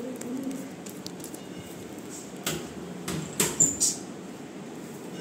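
A few light taps and handling noises from hands working close to the microphone, with a brief high squeak near the middle.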